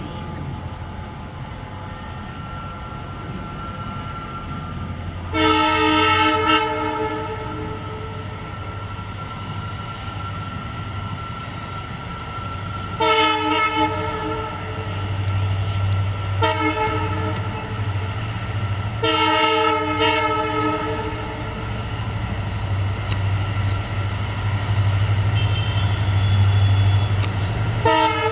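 WDP4 diesel locomotive accelerating a passenger train away. Its EMD two-stroke engine runs with a low drone that grows louder from about halfway through. The locomotive sounds its multi-tone horn in several blasts: a long one about five seconds in, three shorter ones in the middle, and one at the end.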